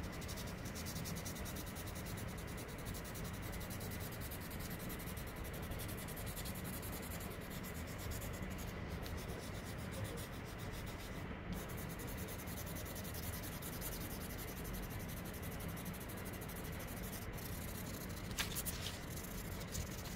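Graphite pencil held on its side, rubbed back and forth over paper in rapid strokes, thickly covering drawn lines with graphite. Two brief clicks come near the end.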